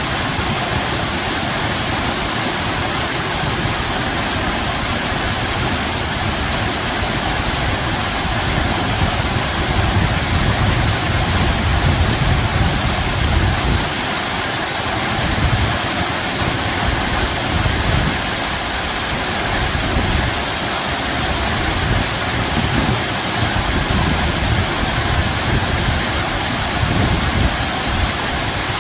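Running water: a steady rushing with a rumbling low end that swells and fades irregularly.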